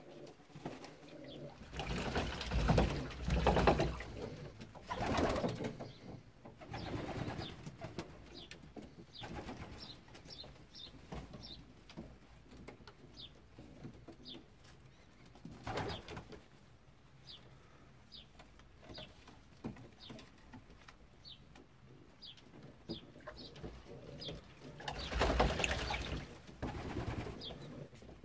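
Young racing pigeons bathing in a shallow crate of water: bursts of wing-flapping and splashing, loudest a few seconds in and again near the end, with pigeons cooing in between.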